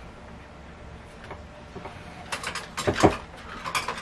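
Clinks and knocks of a stainless-steel tumbler and its lid being handled on a stone countertop. They start about halfway through as a quick run of sharp clicks, with one louder knock.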